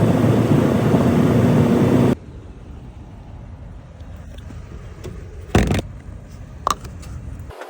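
Steady rush and rumble of a vehicle on the move, cutting off abruptly about two seconds in; then a quieter low rumble with two sharp knocks near the end.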